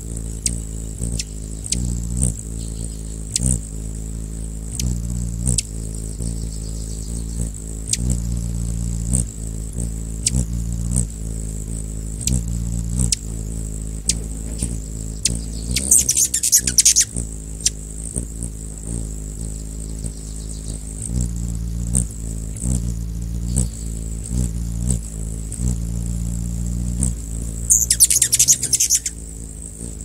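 Hummingbird hovering close, its wings making a steady low hum that swells and fades, with scattered short sharp chip notes. About halfway through and again near the end comes a brief rapid, buzzy chatter.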